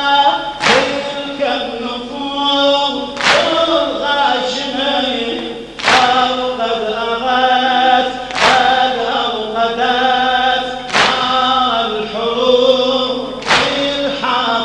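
Men's voices chanting a Shia latmiyya lament together, with six loud collective hand slaps on bare chests, one about every two and a half seconds in time with the chant.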